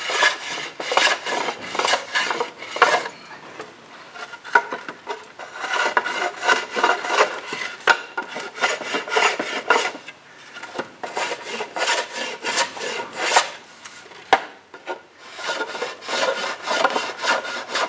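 Hand plane shaving a caulking bevel along the edge of a wooden plank: a run of short cutting strokes in several groups, with brief pauses between them.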